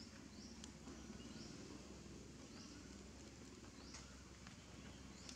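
Faint outdoor ambience: a small bird giving short, high, rising chirps every second or so over a low steady rumble, with a couple of faint clicks.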